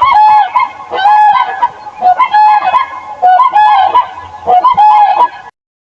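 Several geese honking over and over, loud nasal calls at slightly different pitches overlapping about two a second; the calls cut off suddenly near the end.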